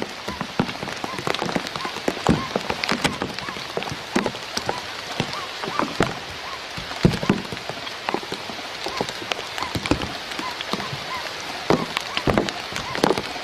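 An irregular patter of sharp taps and drips, with faint short calls repeating about twice a second beneath it.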